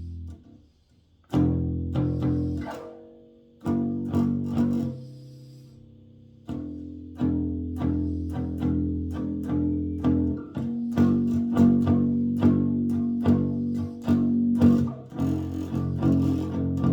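Bass guitar played freestyle: single plucked notes ring out and fade, with a brief gap about a second in, then a faster run of repeated plucked notes over ringing tones in the second half.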